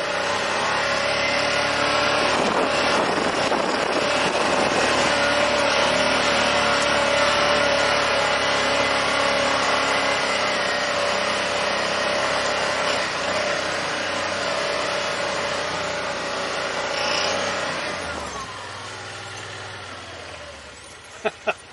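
Yamaha Wolverine side-by-side's engine pulling loud and steady in four-wheel drive up a wet, slippery dirt hill. Near the end the revs fall away and it runs much quieter.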